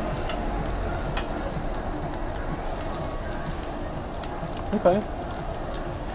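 Meat sizzling on a tabletop Korean barbecue grill, a steady frying hiss with scattered small pops. A brief hum of a voice about five seconds in.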